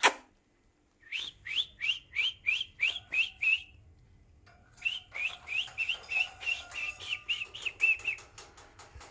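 Small pet parrot making a rapid run of short rising chirps, each with a click, about three or four a second. It pauses, then gives a second, longer run.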